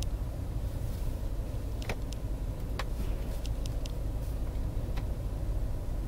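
Ford car's engine running steadily with a low rumble, heard from inside the cabin while it rolls at walking pace, with a few faint clicks. The engine keeps running although the push-button start/stop has been pressed while driving.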